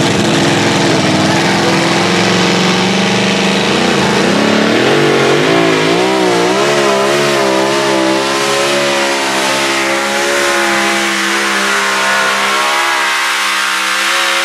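Supercharged two-wheel-drive pulling truck's engine running flat out as it drags the weight sled. Its pitch is steady at first, then wobbles up and down from about four seconds in.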